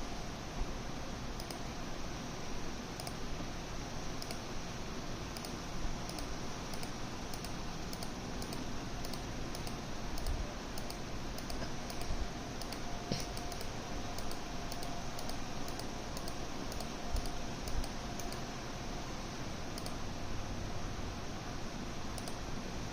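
Steady background hiss with frequent faint, irregular clicks, something like light typing.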